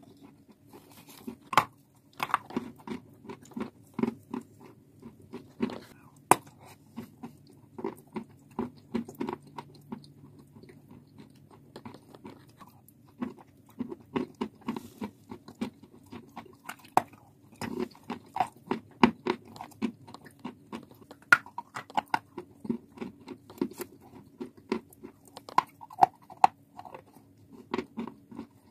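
A person biting and chewing pieces of chalk and clay with a creamy paste, close to the microphone: a fast, irregular run of sharp crunches, thinning out briefly about ten seconds in.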